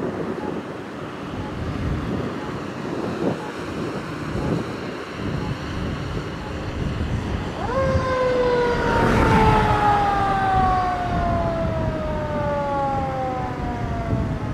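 Fire pumper's engine running as it pulls out. About halfway in, its Federal Q2B mechanical siren is given a short burst: the tone comes in suddenly and then winds down slowly, falling steadily in pitch.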